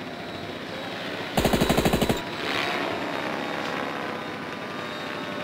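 Machine-gun fire sound effect dubbed over the flight: one rapid burst of about fifteen shots a second, lasting under a second, starting about a second and a half in, over a steady background hum.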